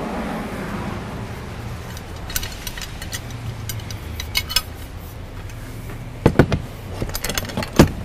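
Light metallic clinks, then a few sharp knocks in the last two seconds, as a flagpole is handled and set into a wall-mounted bracket; a steady low rumble lies underneath.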